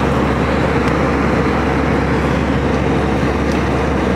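Steady airliner cabin noise in flight: turbofan engines and rushing air heard from inside the cabin, with a low constant hum underneath.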